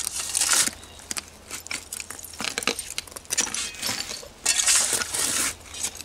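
Shovel scraping and scooping into dirt full of broken glass: a rasping scrape near the start and another longer one about four and a half seconds in, with scattered clinks and rattles of glass shards between.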